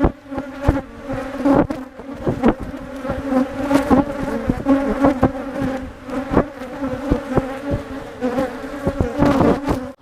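Loud buzzing of a mass of agitated, defensive Africanized honey bees: a steady hum with single bees repeatedly zipping close past.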